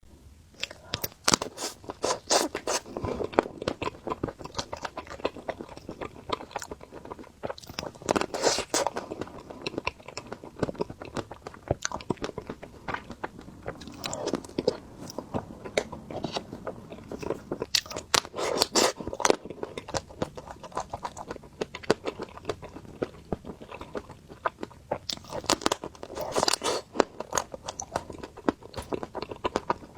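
Close-miked bites and chewing of crispy ice cream with a crunchy coating: sharp crackling crunches that come in clusters every few seconds, with softer chewing between them.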